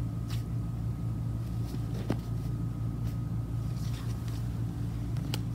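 Steady low background hum with a faint constant high tone, broken by a few short clicks and crinkles from a packaged squishy toy being handled.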